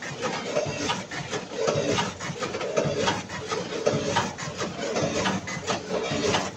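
Automatic gummy candy packing machine with a multihead weigher running, a vertical form-fill-seal bagger: a busy, rhythmic mechanical clatter of clicks and knocks.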